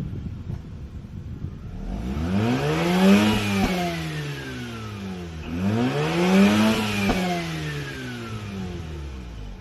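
Mazda RX-8's two-rotor rotary engine revved twice from idle: each time the pitch climbs for about a second and then falls slowly back towards idle, the first rev about two seconds in and the second about five and a half seconds in.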